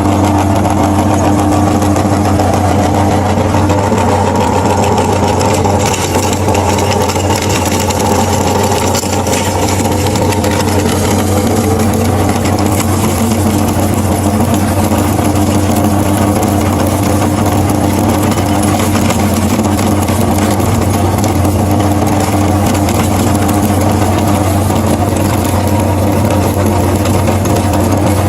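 Electric meat grinder motor running steadily with a loud, even hum.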